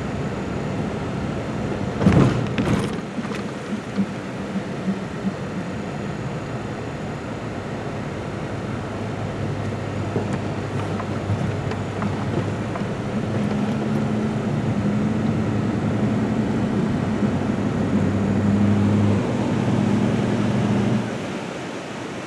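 Inside a moving vehicle on an unpaved road: steady engine hum and tyre-and-road rumble, with a sharp knock about two seconds in. The engine note grows stronger through the second half and drops off shortly before the end.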